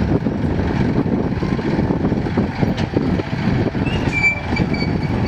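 Mil Mi-26 heavy transport helicopter running on the ground with its rotors turning: a dense, steady low rumble of turbine engines and rotor, with a faint high whine about four seconds in.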